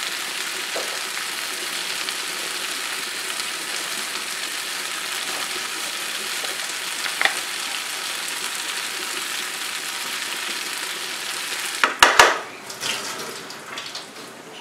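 Boiled mash daal frying in oil and butter in a wok, a steady sizzle as it is cooked down until the oil separates. About twelve seconds in come a few sharp knocks and scraping as a wooden spatula stirs it, after which the sizzle is fainter.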